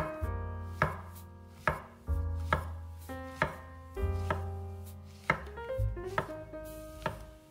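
Knife chopping on a cutting board, a series of sharp strokes roughly every half second to second, over background keyboard music.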